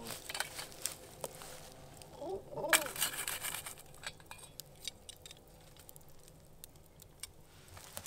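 Wood campfire crackling, with scattered sharp pops from the burning logs. A stainless pan clinks against the embers a little before the middle, together with a brief murmur of voice.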